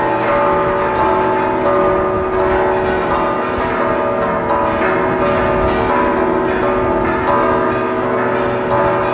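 Several large cathedral tower bells pealing together in a Mexican esquileo and repique, the swung and struck bells. Heavy strokes every second or two land over a dense, unbroken wash of overlapping bell tones.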